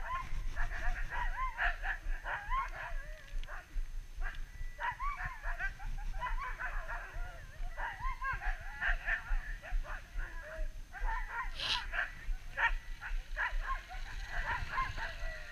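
Sled dogs (huskies) yipping and whining over and over, many short rising-and-falling cries overlapping, with a low rumble underneath.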